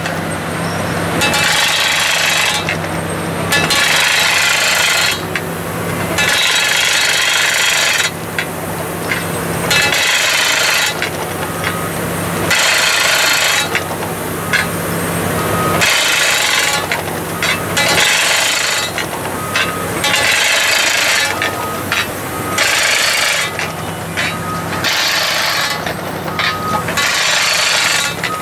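Tracked hydraulic drilling rig running steadily, its mast-mounted drive working into frozen ground for a structural ground-screw foundation. Bursts of harsh noise start and stop every second or two over the engine's steady hum.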